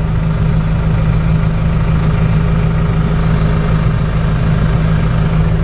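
Case IH Farmall 75C tractor's diesel engine running at a steady speed, heard close up from the operator's seat.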